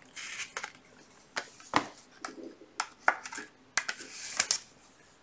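Trading cards handled by hand, a light tap or click every second or so and short swishes of card sliding over card, the longest a little before four seconds in.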